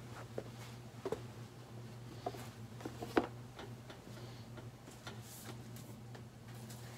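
Faint scattered clicks and light knocks over a steady low hum: someone moving about and handling objects.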